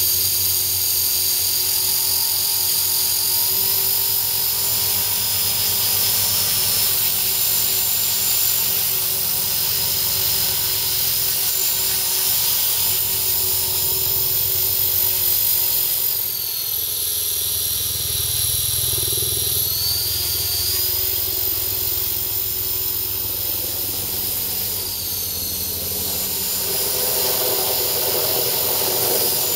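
EXI 450 Pro electric RC helicopter running: a high, steady whine from its electric motor over the whirr of the spinning rotor blades. The whine drops in pitch for a few seconds about halfway through, then rises again, and dips briefly once more near the end as the rotor speed changes.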